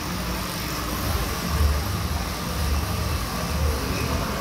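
Steady rumbling hiss of background noise with a faint steady hum, swelling in irregular low thumps through the second half.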